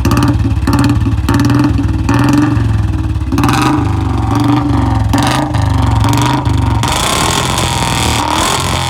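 Royal Enfield Bullet BS6 single-cylinder engine running just after starting, blipped up and down several times with the throttle. The exhaust has a steady thump that swells with each rev.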